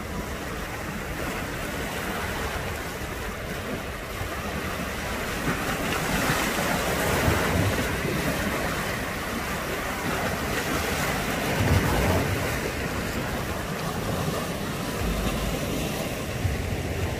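Mediterranean sea waves washing and breaking on a rocky shore, a steady hiss of surf that swells from about five seconds in and eases after about twelve. Wind rumbles on the microphone now and then.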